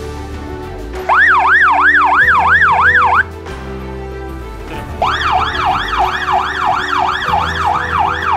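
Police car siren in a fast yelp, rising and falling about three times a second. It sounds for about two seconds starting a second in, stops, then starts again about five seconds in. Background music plays underneath.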